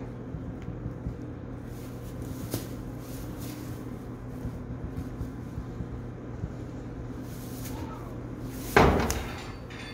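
Faint rustling in straw over a steady low hum, then a single loud knock near the end that dies away over about half a second.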